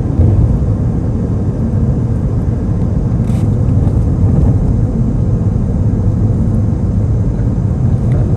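Steady low road and engine rumble of a moving car, heard from inside the cabin, with one brief click about three seconds in.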